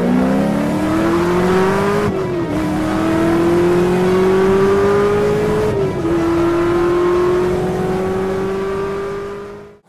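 Car engine at full throttle accelerating through the gears: its pitch climbs, drops at upshifts about two and six seconds in, and climbs again.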